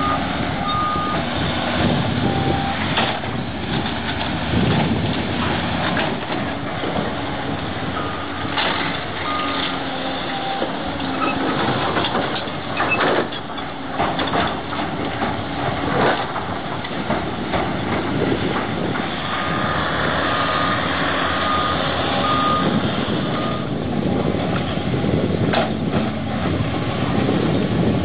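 Heavy diesel earthmoving machines running: a Caterpillar hydraulic excavator and an articulated dump truck. Runs of a reversing alarm beep about twice a second, a few times over, and now and then there is a sharp knock of rock or steel.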